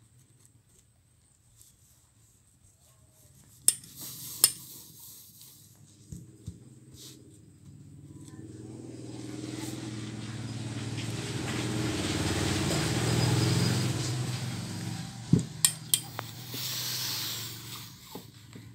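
A vehicle passing by, a rumble that swells slowly to a peak and fades away, with a few sharp clicks before and after it.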